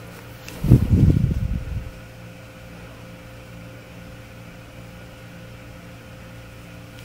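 Steady low electrical or fan-like room hum with a few constant tones. About half a second in comes a loud, low, muffled rumble of handling noise lasting about a second.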